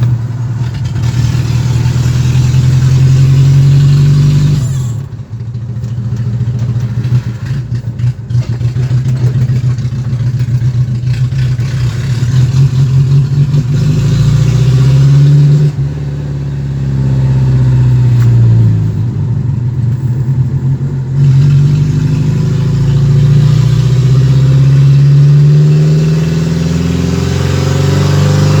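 Ford Maverick's 2.3 OHC four-cylinder engine running loud, its pitch repeatedly rising and falling as the throttle opens and closes. The level dips sharply about five seconds in and again around sixteen seconds.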